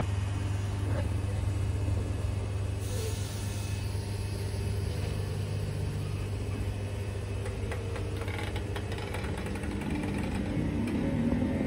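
ScotRail electric multiple unit moving slowly along a station platform with a steady low electrical hum. Near the end the motor pitch rises as it accelerates away.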